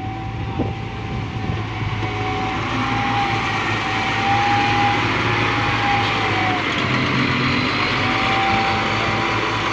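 Diesel engine of heavy earthmoving machinery running steadily, with a faint whine that wavers slightly in pitch, growing louder over the first few seconds.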